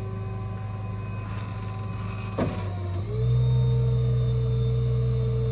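Rollback tow truck running with a steady hum, a clunk about two and a half seconds in, then the hum steps up in pitch and gets louder as the truck's hydraulics work the flatbed.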